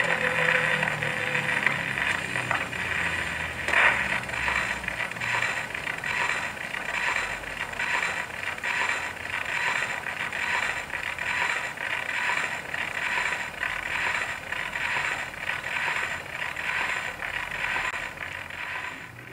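Acoustic wind-up gramophone with its needle running in the run-out groove of a 78 rpm shellac record: a scratchy swish that repeats about every three-quarters of a second, once per turn of the record. The last of the record's music fades out in the first few seconds.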